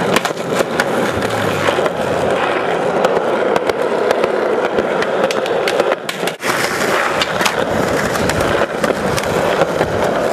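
Skateboard wheels rolling on an asphalt path, with repeated sharp clacks of the board popping and landing during flip tricks. The rolling cuts out briefly about six seconds in.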